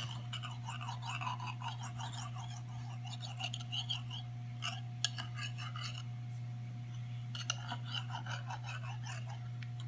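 Knife scraping and clicking lightly against the edge of a glass pie dish while cutting away excess puff pastry, with soft whispering and a steady low hum underneath.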